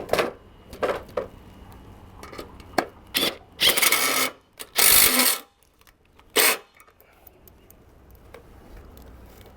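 Power drill running in a few short bursts of about half a second each, driving the fasteners that mount a motorized screen housing to the header, with a few knocks in between.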